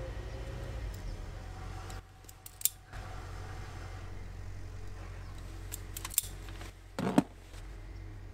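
Hand wire strippers clicking as they clamp and strip the insulation off wire ends: a few sharp snaps, the loudest about seven seconds in. A steady low hum runs underneath.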